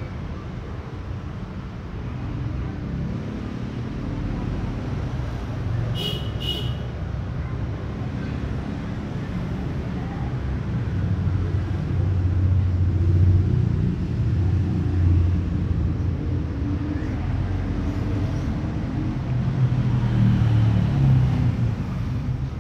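Steady low background rumble that swells twice, around the middle and near the end, with a short high double chirp about six seconds in.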